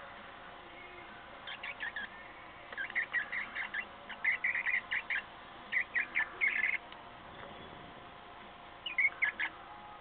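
Cockatiel chirping in the nest box: bursts of short, quick high chirps, a brief run about a second and a half in, a longer run for about four seconds, then another short run near the end.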